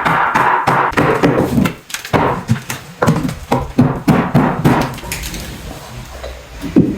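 Hammer driving 10d nails into a wooden jack stud: a quick run of sharp wood-on-metal strikes, several a second, easing off after about five seconds.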